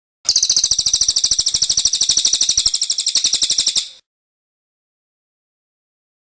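A small songbird's rapid chirping: a fast, even string of sharp high chirps lasting about three and a half seconds, then cutting off abruptly.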